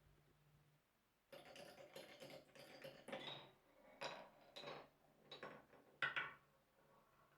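Glass marbles rolling and clattering down a marble run. The clatter starts suddenly about a second in, with a string of sharp clacks that ring briefly, the loudest near six seconds in, then dies away.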